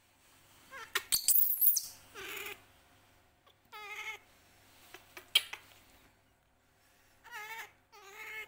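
Baby monkey squeaking and squealing in about six short, wavering calls. The loudest and shrillest comes about a second in.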